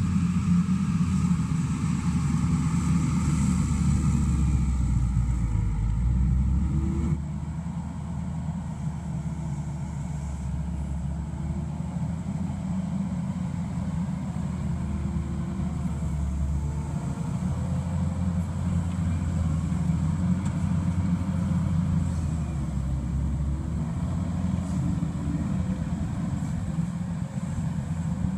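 Mustang MTL325 compact track loader's diesel engine running steadily as the machine pushes dirt, with a fainter whine that rises and falls in pitch.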